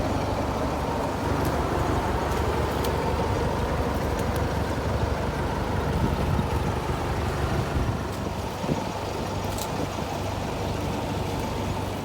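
An engine running steadily with a low hum, under rough outdoor noise.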